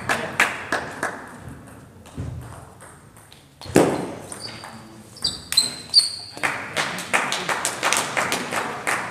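Table tennis ball being hit back and forth in a rally, a sharp ping off the bats and table about three times a second. The ball strikes die away after about a second and a half. A loud thump comes near the middle, followed by a few short high squeaks. The regular pinging starts again for the last few seconds.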